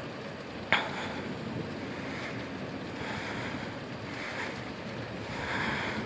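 Steady wind and light rain noise outdoors, with soft hissing swells and a single sharp click about three-quarters of a second in.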